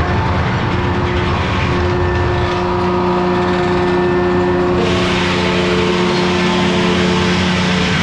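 1953 Detroit two-stroke diesel engine running steadily, driving a circular sawmill. About five seconds in the sound abruptly turns brighter and hissier.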